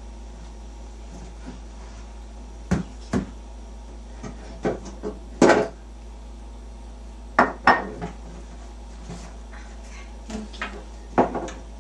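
Dishes and kitchen items knocking and clinking as they are handled and taken from a cabinet: about a dozen separate knocks, the loudest about five and a half seconds in.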